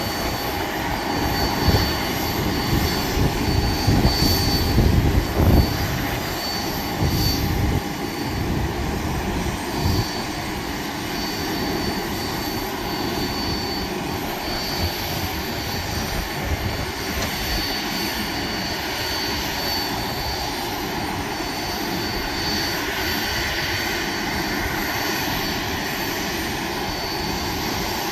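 Steady noise of jet airliners on the airport ramp and taxiway, with a thin high whine that comes and goes. Wind buffets the microphone in gusts during the first several seconds.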